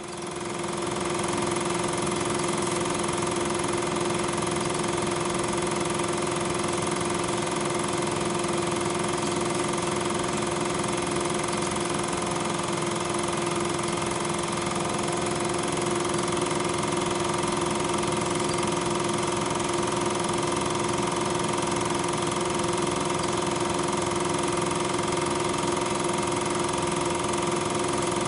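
Film projector running: a loud, steady motor whir and hum with a strong held tone, rising in over the first second and then unchanging.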